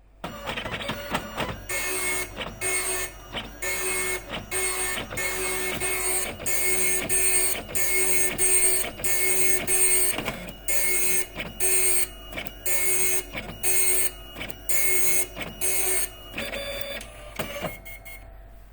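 Epson dot matrix printer printing: a run of short, rasping bursts from the print head, about two a second, with brief pauses between passes. The printing thins out and stops near the end.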